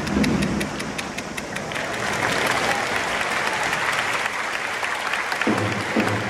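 Football stadium crowd clapping and cheering; the crowd noise swells about two seconds in. Near the end a rhythmic low beat from the supporters starts up.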